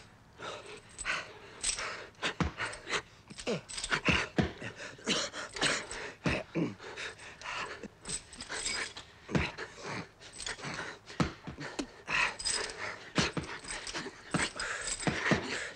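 Two men sparring in boxing gloves: irregular dull punches and glove impacts mixed with heavy panting breaths.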